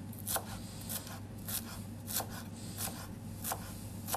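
Chef's knife chopping fresh dill on a wooden cutting board: about seven even cuts, a little over half a second apart, each a light tap of the blade on the board.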